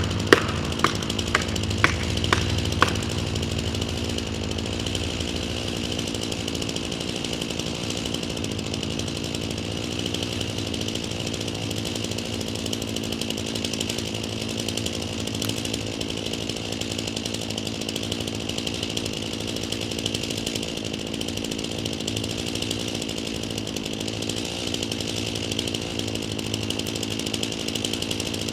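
Chainsaw running steadily. About twice a second there are sharp knocks, which stop about three seconds in.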